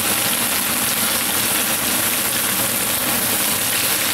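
Chanterelle mushrooms and onion sizzling steadily in oil in a frying pan as they are stirred with a plastic spatula.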